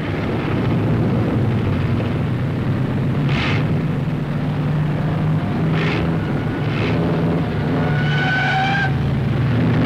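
A racing car's engine running at speed, a steady drone, with a few brief rushes of noise and a short high tone about eight seconds in.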